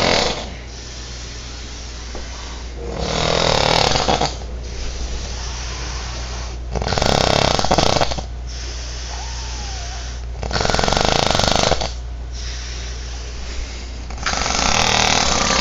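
A man snoring loudly in deep sleep, with long snores coming about every three and a half seconds: the end of one at the start, then four more.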